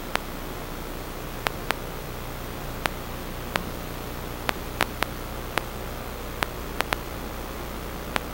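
Steady static hiss with a faint low hum, broken by about a dozen sharp clicks at irregular intervals.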